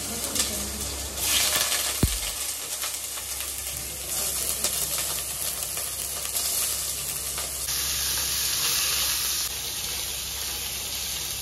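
Fatty pork pieces sizzling in a hot non-stick pot, frying with little or no added oil so the fat renders out. Small scattered clicks come from pieces dropped in and a ladle stirring them, with a single sharp knock about two seconds in.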